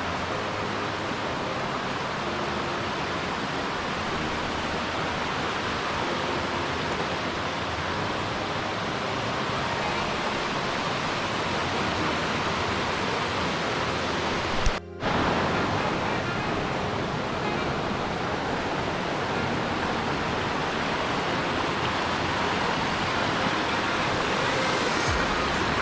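Steady rushing of a mountain stream, an even hiss of running water, broken by a brief dropout about fifteen seconds in.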